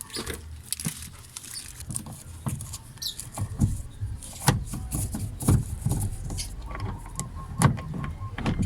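Scattered clicks and knocks of a screwdriver and hands working a screw out of a car door's inner panel, over a low steady hum.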